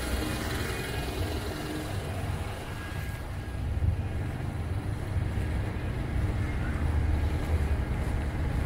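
City street noise in a snowstorm: a steady low rumble of passing traffic mixed with wind buffeting the microphone.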